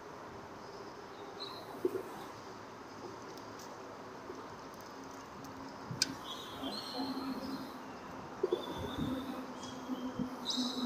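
Pigeons cooing in low, repeated phrases, with small birds chirping in short high notes over them, mostly in the second half. A few sharp clicks, the loudest about six seconds in.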